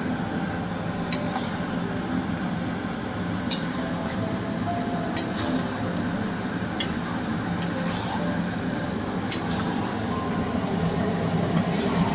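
A cooking utensil clinking against the pan about six times while chicken is stirred in its sauce, over a steady background noise.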